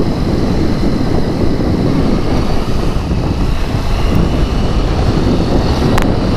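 Steady riding noise of a Triumph Street Triple three-cylinder motorcycle on the move: a constant engine drone under wind rushing over the microphone.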